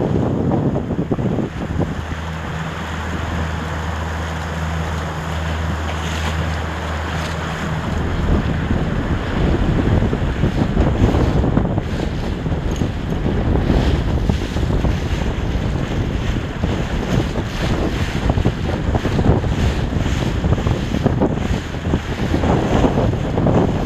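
Wind buffeting the microphone, with water rushing and splashing around a sailing dinghy under way, in gusty surges. A low steady hum runs from about a second and a half in and stops about eight seconds in.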